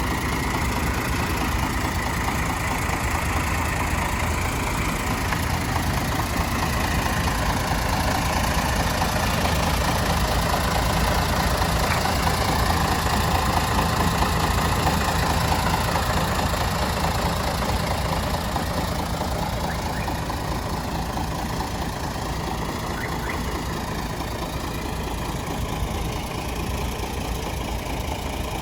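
Diesel engine of a Mercedes-Benz O307 bus running, heard from inside the passenger cabin. The engine note swells a little toward the middle and eases off in the second half.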